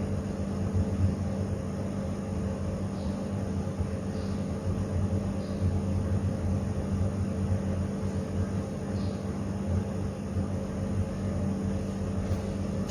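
Steady low machine hum, with a few faint ticks.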